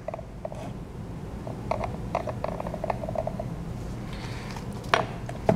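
A run of light mechanical clicks and rattles from handling, thickest about two seconds in, with a sharper click near the end.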